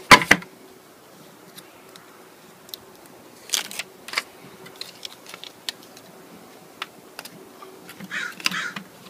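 Handling noise on a plastic air box cover: a sharp cluster of clicks and knocks right at the start, a few lighter taps about three and a half seconds in, and a short rustle near the end as a hand works the part.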